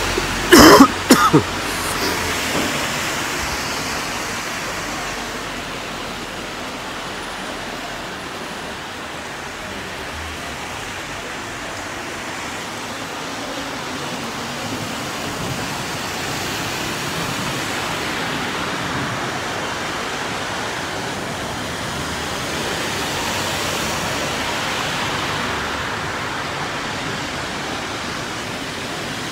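Heavy rain falling on a flooded street, a steady hiss that swells now and then as cars drive through the standing water. A couple of loud coughs come right at the start.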